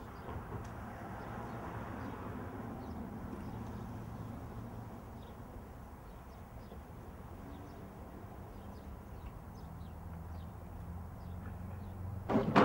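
Outdoor ambience of faint bird chirps over a steady low hum, ending in a sudden loud clatter as the front door is unlatched and pushed open.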